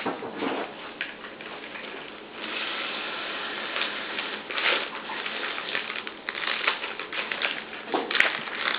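Water running from a kitchen tap into a measuring cup, an even hiss that is steadiest a couple of seconds in, amid small clicks and clatter of kitchen things being handled.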